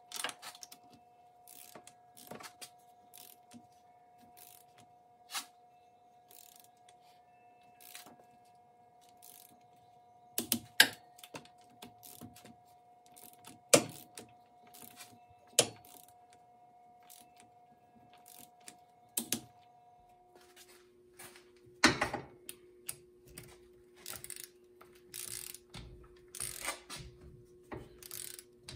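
Ratchet-head torque wrench clicking and ratcheting as cylinder head bolts are tightened to 35 ft-lb, in scattered sharp metallic clicks, some much louder than others. A faint steady hum underneath drops to a lower pitch about two-thirds of the way through.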